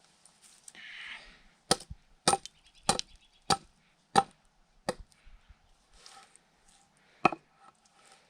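Hatchet chopping into a dry log: six sharp strikes, one every half second or so, then a single strike near the end.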